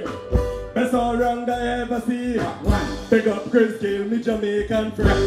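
Live music playing loud through a stage sound system, with a man singing into a microphone over it.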